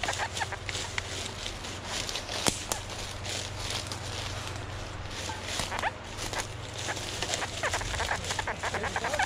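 Footsteps crunching through ivy and dry leaf litter, with rustling and a sharp snap about two and a half seconds in, and short high chirps scattered throughout.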